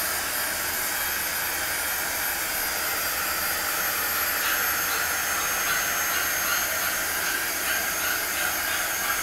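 Heat embossing wand running steadily, its small fan blowing hot air across wet poured acrylic paint to pop surface bubbles and bring up cells.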